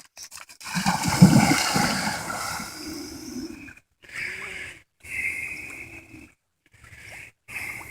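A retrieving dog sent into the water: a loud splash about a second in that fades over a few seconds, then several short rushes of noise.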